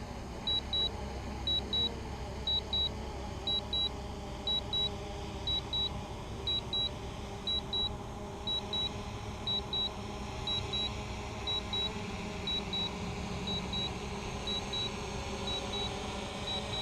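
DJI drone remote controller giving short high double beeps about once a second, its aircraft low-battery warning, over the steady hum of the DJI quadcopter's propellers.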